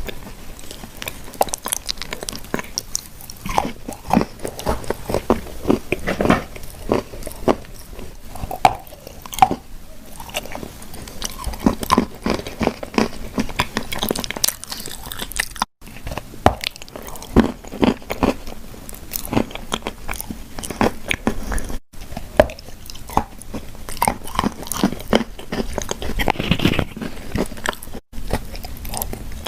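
Close-miked biting, crunching and chewing of clay shortbread cookies: dense, irregular crisp crunches and crackles. Three brief dropouts to silence break it up.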